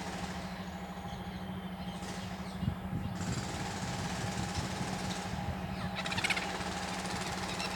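A steady motor drone with a constant low hum, and about six seconds in a brief harsh, rapid squawk from a bird.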